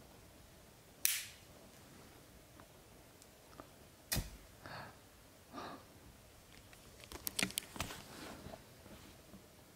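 Vintage 1960s Dunhill Rollagas butane lighter being worked: sharp metallic clicks of its lid and roller striking mechanism, one about a second in, a louder one about four seconds in, and a quick run of small clicks near the end as it is lit again.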